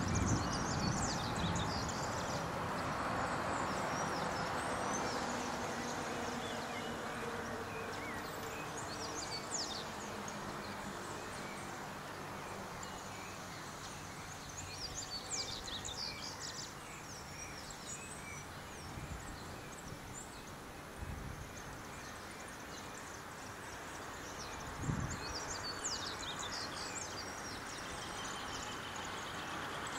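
Outdoor ambience: a steady background hiss with small birds chirping in short high bursts several times, and a few brief low thumps.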